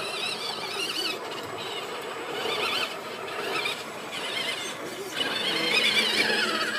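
Scale RC rock crawler's electric motor and gear drive whining as it climbs rock, the high pitch wavering up and down with the throttle.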